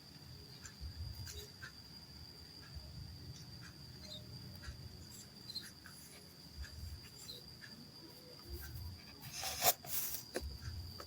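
A mass of ants moving, heard as faint scattered ticks and crackles over a steady high-pitched whine. A louder rustling burst comes about nine and a half seconds in.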